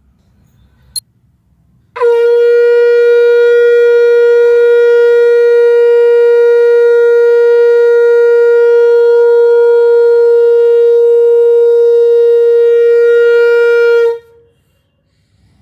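Conch shell (shankh) blown in one long, steady note lasting about twelve seconds, starting about two seconds in and cutting off near the end. A short click sounds just before the note.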